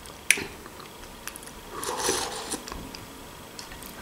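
A person chewing a mouthful of stuffed bell pepper close to the microphone, with soft wet mouth sounds. There is one sharp click shortly after the start.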